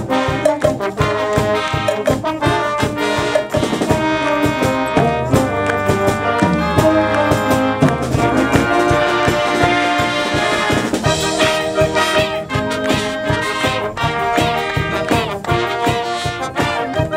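A high school marching and wind band playing a lively tune live: brass and saxophones over a sousaphone bass line, with a steady driving beat.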